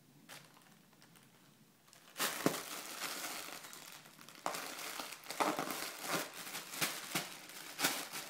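A sheet of plastic bubble wrap crinkles and rustles as a baby grabs and shakes it, with sharp crackles. It starts about two seconds in.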